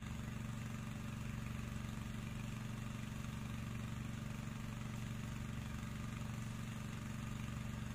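A steady low mechanical hum, engine-like, with a faint hiss over it and no change in level.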